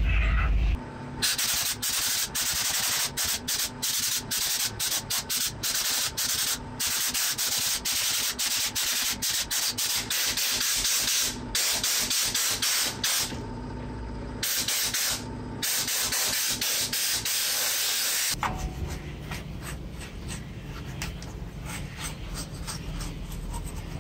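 Hissing spray jet blasted over a circuit board in many short bursts with brief breaks, stopping about three-quarters of the way through. A toothbrush then scrubs the board with a quieter, steady rubbing.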